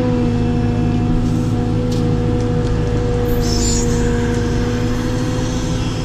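Caterpillar 432F2 backhoe loader's diesel engine running steadily, heard from inside the cab, with a steady whine over the low engine rumble.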